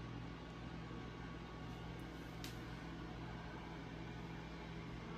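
Faint steady low mechanical hum, like an appliance or fan running, with one faint click about two and a half seconds in.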